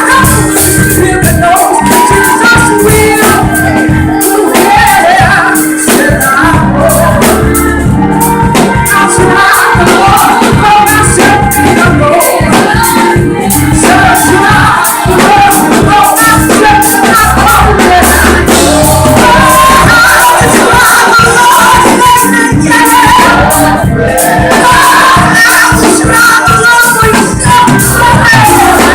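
Live gospel music: a group of singers in choir-style harmony over a band with bass and drums, and a tambourine shaking along.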